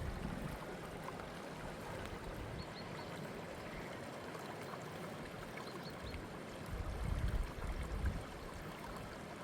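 Steady rush of flowing water from a stream or waterfall. A few low bumps come about seven to eight seconds in.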